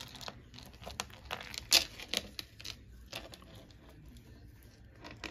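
Hands rummaging through a tangled pile of jewelry: irregular small clicks, clinks and rustles of chains and pieces being pulled apart, the loudest a sharp click just under two seconds in, thinning out over the second half.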